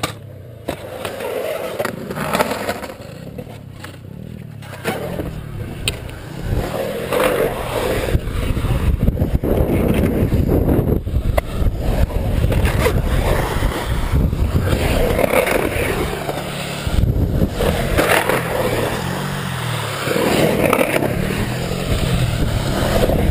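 Skateboard wheels rolling on the concrete of a skate pool, a continuous rumble that swells and fades every few seconds as the board carves up and down the walls, with a few sharp clacks.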